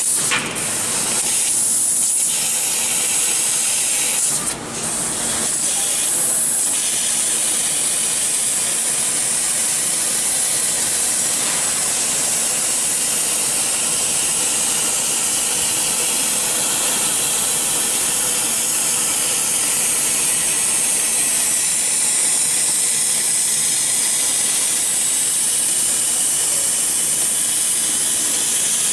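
CNC laser cutter cutting 10 mm steel plate: a steady hiss of the assist-gas jet blowing through the cut. The hiss drops briefly twice in the first five seconds.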